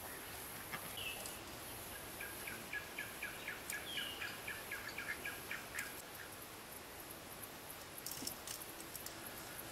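Coturnix quail calling softly while feeding: a couple of short falling chirps and a run of quick, repeated short notes at about four a second for a few seconds. A few light clicks follow near the end.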